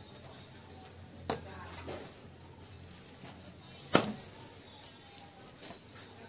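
Steel cleaver chopping through lemongrass stalks onto a thick wooden chopping block: three sharp chops, about one, two and four seconds in, the last the loudest.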